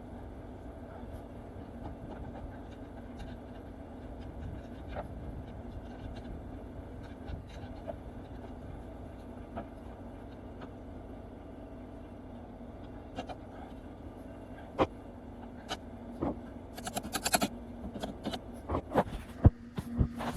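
Metal clinks and knocks from hand tools and strut hardware while a new front strut is fastened in, sparse at first and coming thick and loud near the end, over a steady low background hum.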